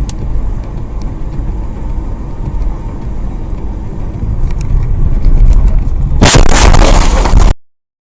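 A car's low, steady road and engine rumble heard from inside the vehicle, growing louder, then a loud harsh noise for just over a second about six seconds in, typical of a collision, that cuts off abruptly.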